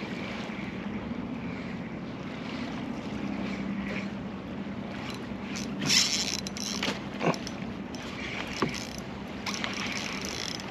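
Wind and choppy water around a canoe while a fish is played on a bent rod. A few short, sharp sounds stand out around the middle.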